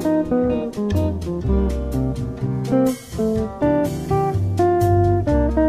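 Background music: relaxed bossa nova-style jazz with acoustic guitar over a moving bass line.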